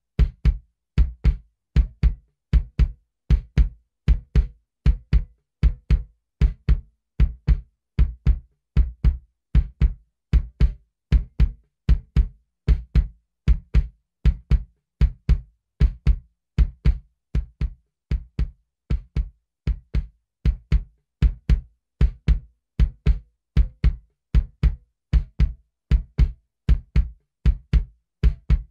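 Close-miked kick drum from a live band recording, played alone in a steady pattern of single hits, about two a second, with silence between them. It is heard through an emulation of a Telefunken V76 tube preamp and U73 compressor.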